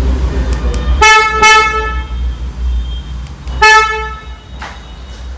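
Vehicle horn honking three short times: two toots back to back about a second in, then a single toot near the middle, over a steady low rumble.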